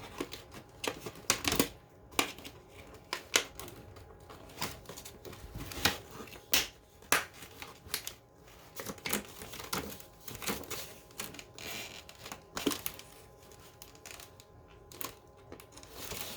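Packaging being pulled and worked at to get a smoke alarm out of its box: irregular clicks, knocks and crinkling.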